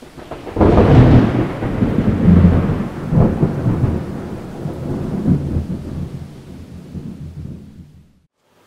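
Thunder rumbling: it swells in sharply about half a second in, rolls on with several smaller surges, and fades away over the next several seconds.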